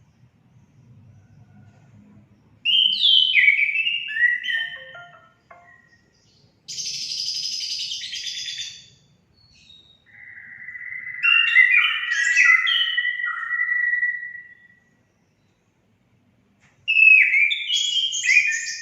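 Orange-headed thrush (anis kembang) song played as a lure, in four phrases with pauses between them. The phrases mix quick falling whistled notes, a scratchy, noisy phrase, and a long warbled phrase of about five seconds.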